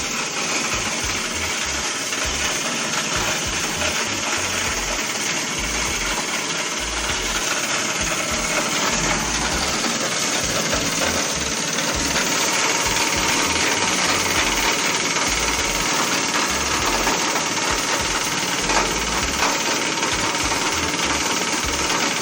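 Plastic shredding machine running steadily and grinding plastic, getting a little louder about halfway through, with one sharp knock near the end.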